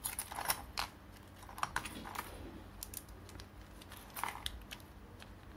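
Irregular small clicks and taps of a steel rod, a coil spring and plastic toy parts being handled and fitted together by hand.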